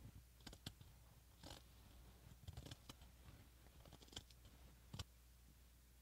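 Scissors cutting through fabric: a few faint, scattered snips and blade clicks, the sharpest about five seconds in.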